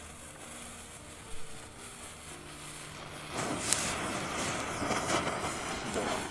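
Four 'Blitz und Donner' youth-firework ground pieces catch about three seconds in, with a sharp pop. They then burn with a steady, loud hissing rush and fine crackle.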